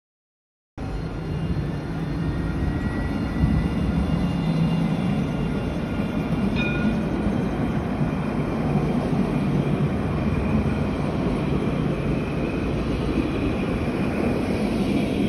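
Alstom Citadis tram running past close by on street track: a steady low rumble with faint high whining tones, cutting in suddenly under a second in.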